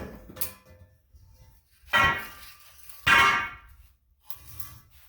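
Metal pipe clanging twice, about two and three seconds in, each strike ringing briefly, with lighter knocks and handling around it.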